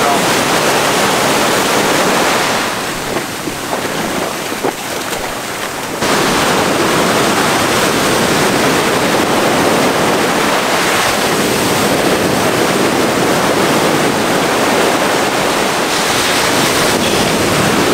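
Ocean surf breaking and washing around the shallows. It drops quieter for a few seconds about two and a half seconds in, then comes back abruptly about six seconds in.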